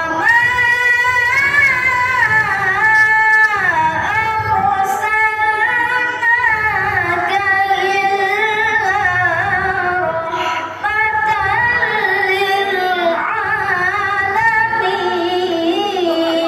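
A boy's voice reciting the Quran in the melodic tilawah style, amplified through a microphone and PA. Long held notes are ornamented with wavering melismatic turns. There is a short break for breath about eleven seconds in, and a long steady held note near the end.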